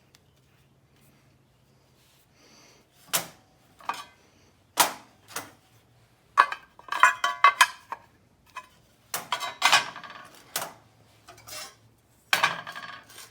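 Sheet metal and metal tools being handled, giving irregular clanks and rattles, with quiet gaps between them.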